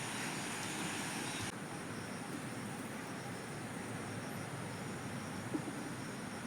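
Steady outdoor background hiss with a faint, even high hum, a little softer in the highest part about a second and a half in.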